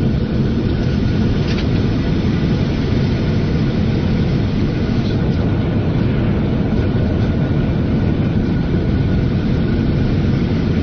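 Boeing 747-400's four engines running in reverse thrust with the runway rumble of the landing rollout, heard inside the flight deck: a loud, steady, deep noise with a faint high whine in it.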